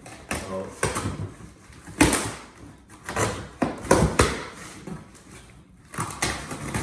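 A cardboard shipping box being opened with scissors: packing tape being cut and the cardboard handled, with a series of irregular sharp scrapes and knocks.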